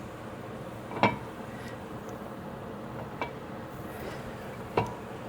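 Three short metallic clinks of tools or brake hardware being handled, about a second in, after three seconds and near the end, the first the loudest, with a brief ring to each, over steady background noise.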